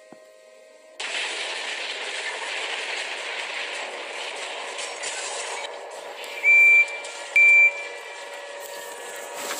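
A loud steady hiss starts abruptly about a second in and carries on. About six and a half and seven and a half seconds in, two short, loud, high beeps at one steady pitch sound over it.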